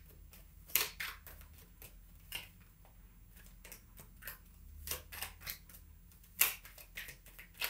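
Tarot cards being shuffled by hand: irregular light clicks and slaps of cards against each other, a few sharper than the rest.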